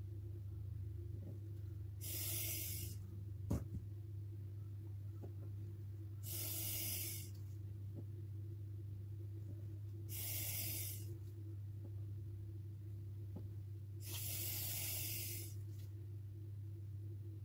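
A person breathing close to the microphone, a soft hiss about a second long roughly every four seconds, over a steady low electrical hum. One faint click about three and a half seconds in.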